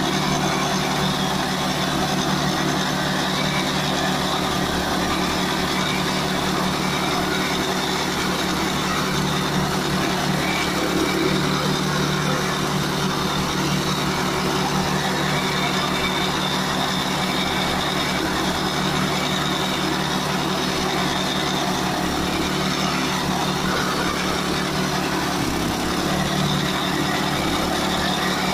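Jansen HSM-60 flail mower's 8 HP single-cylinder gasoline engine running steadily, driving its flail rotor through tall grass.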